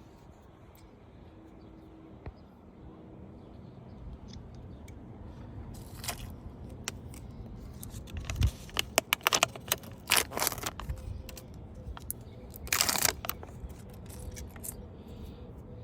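Tools from a tyre plug repair kit being handled and worked: a scatter of sharp clicks and short scrapes and rustles in the middle and latter part, with one longer scraping burst near the end.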